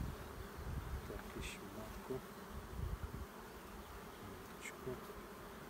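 Honey bees humming steadily around an opened hive, with a few faint low rumbles underneath.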